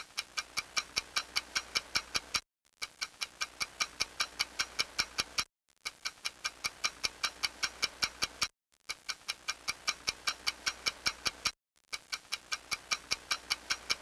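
Rapid clock-like ticking, about five ticks a second, in five runs of roughly three seconds each broken by short silent gaps; each run grows louder as it goes.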